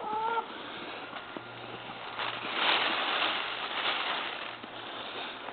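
Rustling and scuffling as a cat wrestles with a plush giraffe dog toy, loudest in the middle, opening with a short high squeak.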